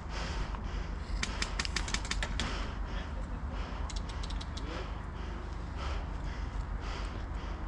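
Airsoft gun firing a rapid string of shots, about a dozen sharp clicks in just over a second, then a few more single shots a couple of seconds later, over a steady low rumble.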